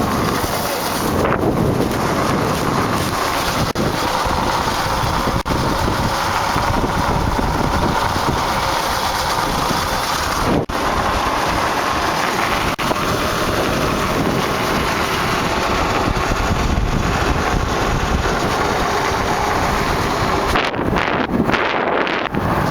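Wind rushing over the microphone of a Kawasaki KLX dirt bike rolling with its engine switched off, a loud, steady rush with a few brief dips.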